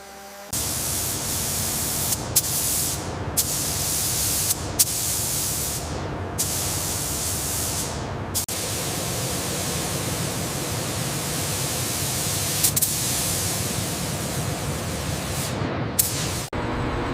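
A high-pressure spray hissing loudly and steadily, starting about half a second in. It is broken by several brief dips and small clicks.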